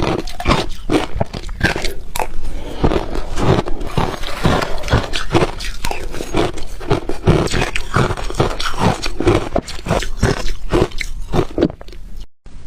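Close-miked crunching of ice being bitten and chewed, a fast irregular run of crisp cracks and crunches. It cuts out abruptly for a moment near the end.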